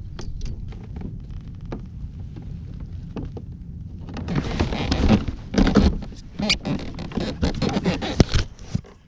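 Wind rumbling on the microphone. From about four seconds in, a run of rustling, scraping and knocking as the action camera is handled and moved against clothing, with a sharp click a little after eight seconds.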